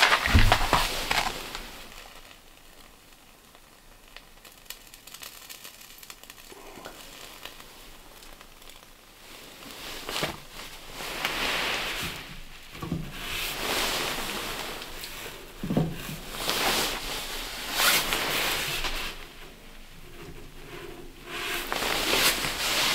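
Rustling, crinkling handling and a few light knocks inside a small steel wood stove as its first fire is laid and lit.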